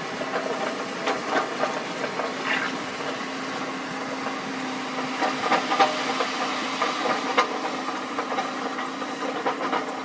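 Sany SY75C excavator running steadily, with repeated short knocks scattered through the sound.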